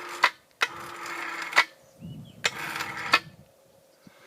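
Hand-operated ratchet winch tensioning the rope on a tree being felled, clicking through three strokes about a second apart.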